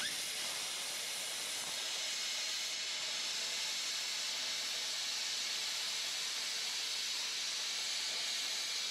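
Hypertherm Powermax 900 plasma cutter's arc striking and then cutting through steel plate: a steady, even hiss that starts abruptly.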